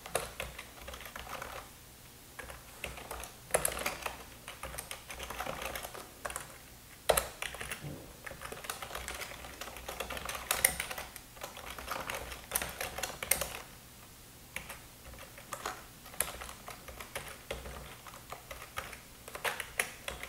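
Typing on a computer keyboard in bursts of rapid keystrokes, with short pauses between runs.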